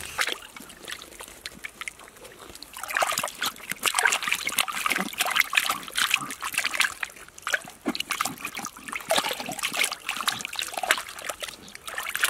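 Hands splashing and scrubbing in shallow stream water while washing food, a quick, uneven run of splashes and trickles that gets busier about three seconds in.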